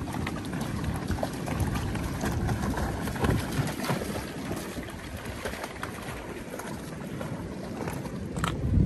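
Wind buffeting the microphone in low gusts, the strongest near the end, over shallow sea water washing and trickling among rocks. Golden retrievers wading through the rock pool add light splashing.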